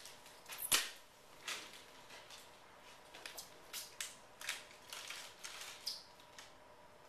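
Handling noise at a lectern: one sharp knock a little under a second in, then a scattered string of lighter clicks and taps as things are handled at the lectern and laptop.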